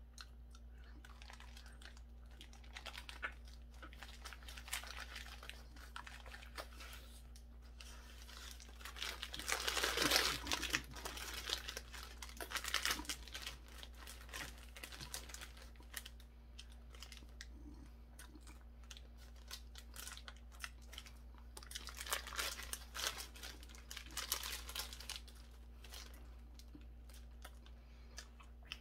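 Paper burger wrapper being crumpled and rustled, in bursts with scattered small clicks, loudest about ten seconds in and again past twenty seconds.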